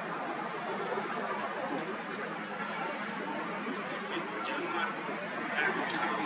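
Birds outdoors: one repeats a short, high chirp evenly, about three times a second, over a dense, busy background of chatter.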